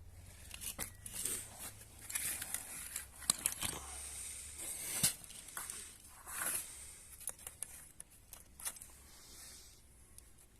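Irregular clicks, scrapes and rustling of small parts being handled by hand, with two sharp knocks about three and five seconds in.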